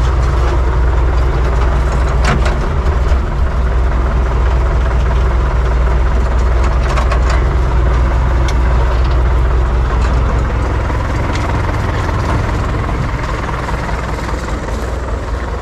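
UTB 650 tractor's four-cylinder diesel engine running steadily at low revs, with a few short sharp clicks over it and a slight easing in loudness near the end.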